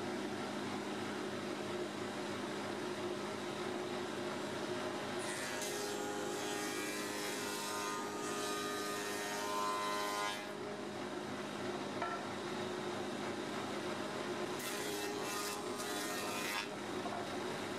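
Spindle moulder (shaper) running with a steady hum while a wooden board is pushed along its fence through the cutter. The cutting adds a hissing rush of noise twice, from about five to ten seconds in and again around fifteen seconds.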